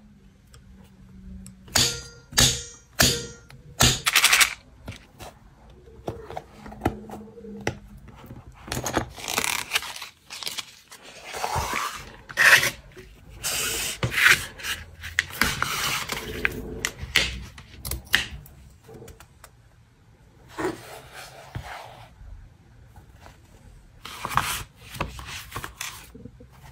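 Paper-crafting handling sounds on a kraft-paper journal cover: rubbing and scraping strokes on paper and card, with light taps and thunks, coming in separate bursts.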